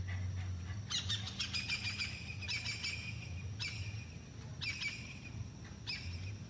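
A bird chirping in short, sharp phrases that repeat about once a second, over a steady thin high-pitched tone and a low background rumble.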